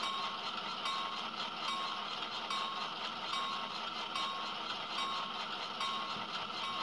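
A model locomotive sound decoder playing a diesel locomotive bell, from the model's small speaker. It rings evenly, a little faster than once a second, over the steady sound of the GP7's idling diesel engine.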